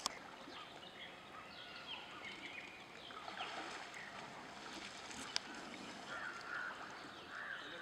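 Water sloshing and splashing around an Indian elephant as it wades and ducks its head under a muddy river, with many short bird chirps over it and a sharp click about five seconds in.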